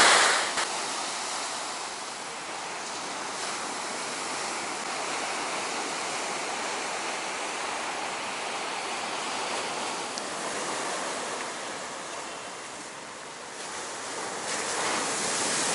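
Rough sea surf breaking and washing up a sandy beach: a steady rushing wash that swells near the end.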